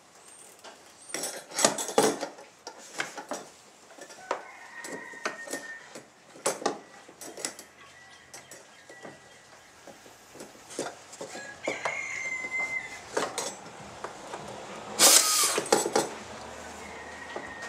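Scattered metallic clinks and knocks of hand tools and hardware against a personal watercraft's hull as a deck cleat is fastened on. A louder clatter comes about fifteen seconds in.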